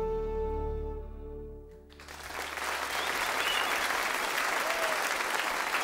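A folk band's final held note on whistle, fiddle and guitar fades away over the first two seconds, ending the tune. Then the audience breaks into steady applause that carries on.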